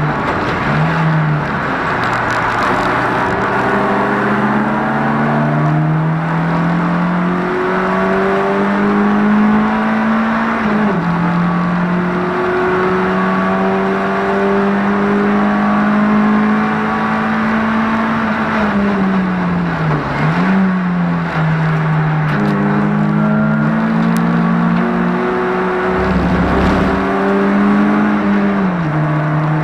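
Touring car's engine running hard at high revs, heard from inside the cabin. Its pitch holds high and creeps up, drops sharply about 11 seconds in and again near the end, and dips and climbs back around 20 seconds in.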